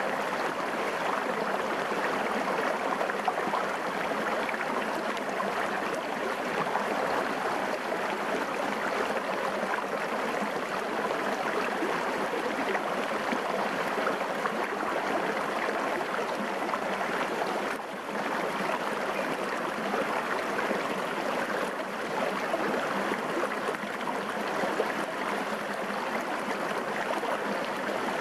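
Small shallow stream running over rocks and stones, a steady rushing and rippling of water close by.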